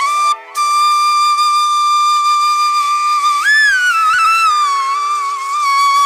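Background music: a flute holding a long note, then bending up and sliding down in pitch about halfway through, over a steady low drone.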